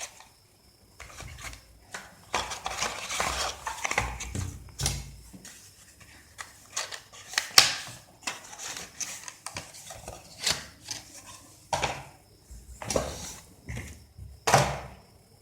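Handling of a phone's retail box and its contents: irregular rustling and rubbing of packaging, with many sharp clicks and light knocks as small items are lifted out and set down.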